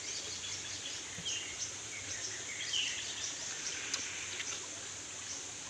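Outdoor ambience: a steady high hiss with several short bird chirps about one to three seconds in, and a few faint clicks.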